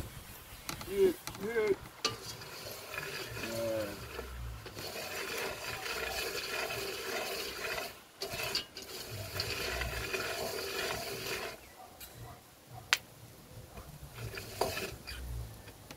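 Cocoa beans being stirred with a wooden stick in an iron pot as they roast, rattling and scraping, with the steadiest stretch in the middle and a sharp click near the end. A few short wavering vocal sounds in the first seconds.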